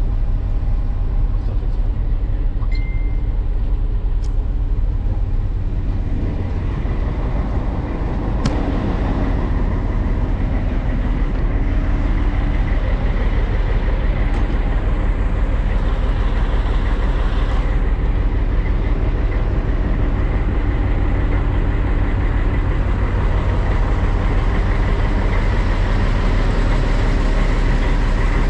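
SU45 diesel-electric locomotive's diesel engine running steadily with a deep hum, getting a little louder from about eight seconds in.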